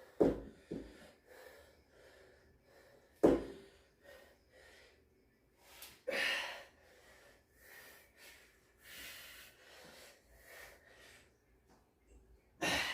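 A man breathing hard after a heavy lifting set, with gasping exhales and snorts through the nose. Two sharp thumps, one just after the start and one about three seconds in.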